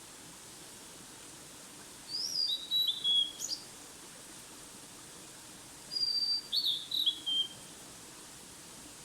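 A songbird sings two short phrases, about four seconds apart, each a few quick whistled notes stepping down in pitch. Under them is the steady hiss of a mountain stream.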